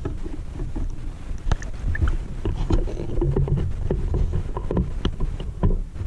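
Underwater sound picked up by a camera in its housing while spearfishing: a steady low rumble of moving water with scattered sharp clicks and knocks.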